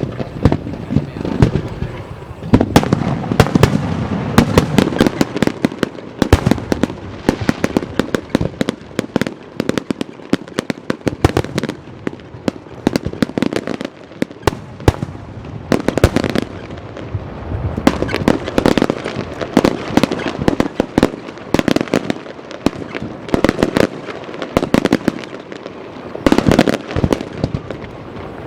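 Aerial fireworks going off in rapid volleys: many sharp bangs and crackles, dense and loud, with brief lulls between barrages.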